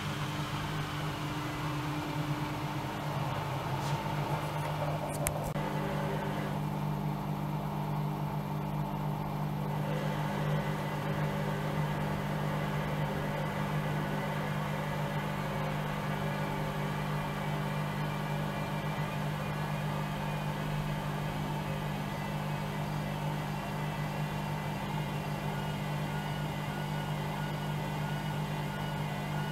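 Bauknecht WAE8575 washing machine running with a steady motor hum. There are a couple of brief clicks about five seconds in.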